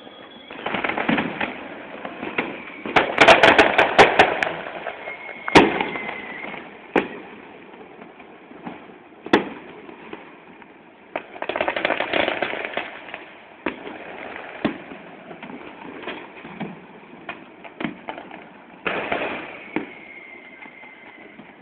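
Fireworks going off: scattered bangs and crackling, densest about three to four seconds in with a sharp loud bang just after, another flurry about eleven to thirteen seconds in, and a thin falling whistle near the end.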